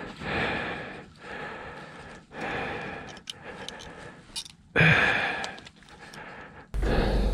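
A man breathing hard, in and out about once a second, with a louder breath near five seconds. Near the end a steady low rumble cuts in suddenly.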